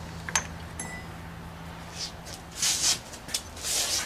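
Small parts being handled on a workbench: two light clicks, then three short rustling, scraping noises, over a steady low hum.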